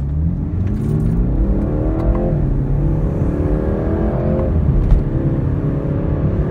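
Turbocharged BMW engine accelerating hard from a standstill, heard inside the cabin. The revs climb, drop at an upshift a little over two seconds in, climb again, and drop at a second upshift about four and a half seconds in.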